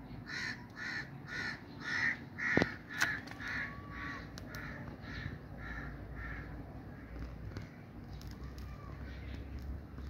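A bird calling in a quick series of about a dozen calls, roughly two a second, growing louder toward the middle and fading out after about six seconds. A couple of sharp clicks come near the loudest calls, about three seconds in.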